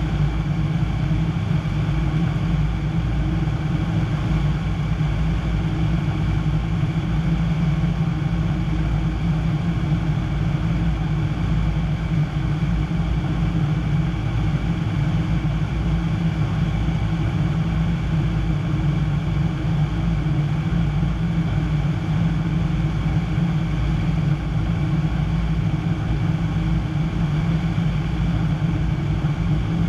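Piper PA-25-235 Pawnee's six-cylinder Lycoming O-540 engine and propeller droning steadily in flight, heard from inside the cockpit.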